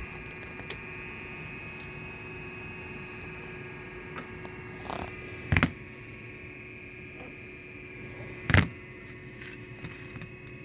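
Steady electrical hum, broken twice, about three seconds apart, by a short sharp knock as the bent metal L brackets are handled and set down on a cardboard box.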